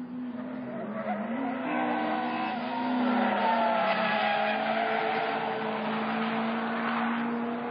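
Honda Civic Type R lapping a race track at high revs, its engine note holding fairly steady with small dips and rises, while the tyres squeal through a corner, loudest around the middle.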